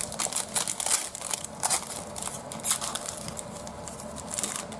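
Trading-card pack wrapper crinkling and rustling as it is torn open and handled: a dense run of small crackles throughout.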